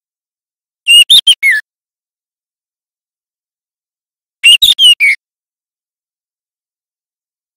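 Juvenile white-rumped shama (murai batu trotol) singing two short phrases, about three and a half seconds apart. Each phrase is a quick run of four or five clear whistled notes that ends on a falling note. This is a young bird practising its song.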